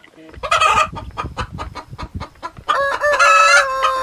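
Chickens: a loud short squawk about half a second in, a run of short clucks, then a rooster crowing with one long, steady call that starts near three seconds in.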